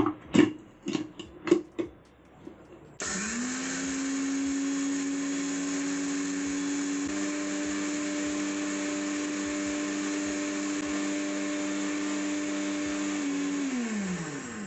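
A few clicks and knocks as the jar and lid are handled, then the Butterfly Hero 500 W mixer grinder's motor starts about three seconds in, grinding coriander in its steel jar with a steady whine that rises slightly in pitch partway through. Near the end it is switched off and winds down with a falling whine.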